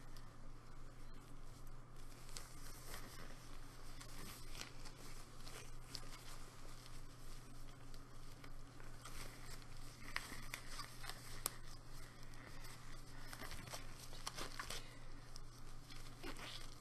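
Blue latex-free exam gloves being pulled on and stretched over the hands close to the microphone: rubbery crinkling and rustling with many small sharp clicks.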